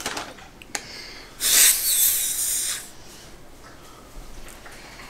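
A toddler blowing her nose into a tissue to clear a stuffed-up nose: one blow of about a second and a half, starting about a second and a half in.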